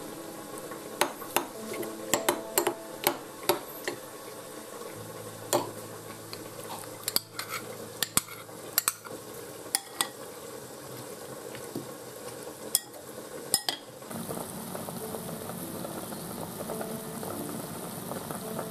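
Metal spoon stirring and mixing in ceramic bowls, with many sharp clinks and scrapes against the bowl. About 14 seconds in, this gives way to a steady hiss of a pot of broth bubbling on the stove.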